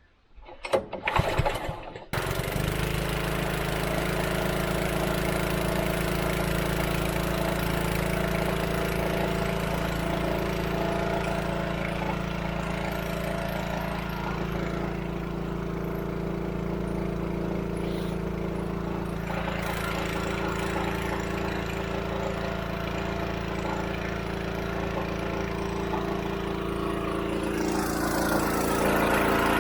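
Small engine-driven water pump starting after a few brief bursts, catching about two seconds in and then running steadily, growing louder near the end. The pump's engine is failing: it works its screws loose and leaks oil heavily while running.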